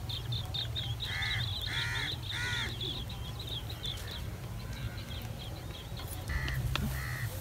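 A crow cawing three times in quick succession about a second in and twice more near the end, over rapid high chirping of small birds that fades out about halfway through.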